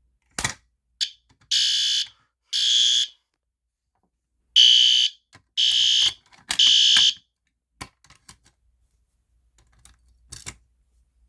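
Fire alarm horn strobe sounding in half-second blasts of a high tone set to code 3 (temporal-three pattern): two blasts, a pause, then three more, after a sharp click as the manual pull station is pulled. The horn stops about seven seconds in, followed by a few light clicks.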